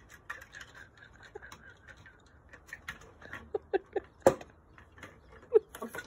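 A dog's claws clicking and scrabbling as it climbs about on a wooden porch chair, with a few short squeaks around the middle and a sharp knock about four seconds in.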